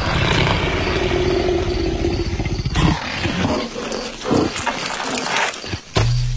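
Cartoon leopard's growls and snarls: a rasping, pulsing growl for about three seconds, then shorter grunts and snarls, and a sudden low thud about six seconds in, as the leopard drops from the branch.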